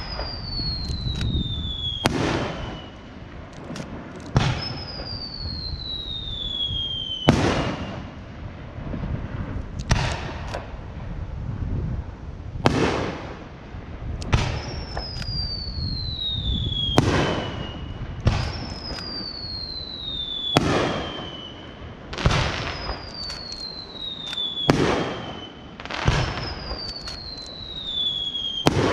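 Japanese display fireworks going off, with sharp bangs about every two seconds and a low rolling echo. Several long whistles fall in pitch between the bangs.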